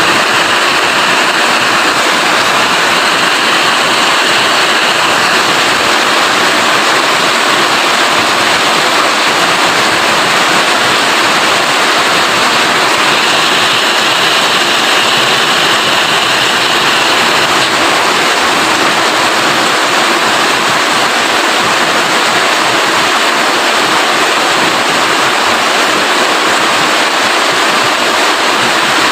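Rain falling steadily, a dense, even hiss with no break.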